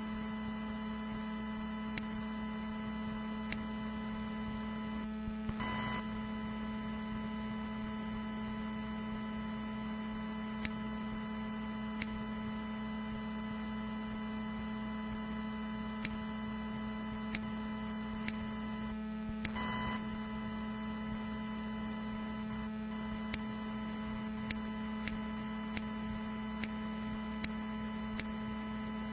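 A steady electronic hum: a strong low tone with many fainter held tones stacked above it, faint scattered clicks, and a brief rush of noise twice, about 6 and 20 seconds in.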